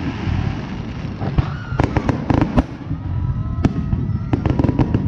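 Fireworks display in a dense barrage, a continuous rumble of booms with many sharp cracks coming in quick clusters, and thin whistles gliding in pitch over them.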